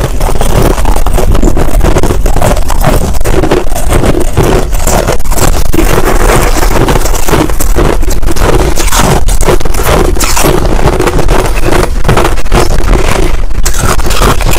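Finely crushed ice being crunched and chewed right at clip-on microphones: a dense, continuous run of crisp crunches without pauses.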